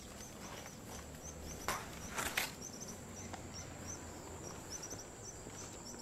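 Faint outdoor ambience with a high, thin chirp repeating a few times a second, like a bird or insect. A few sharp clicks come about two seconds in.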